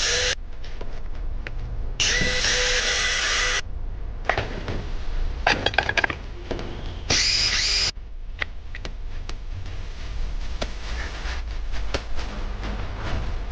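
A power drill run in two short bursts of about a second or so each, with clicks and clattering knocks of hand tools and parts between them.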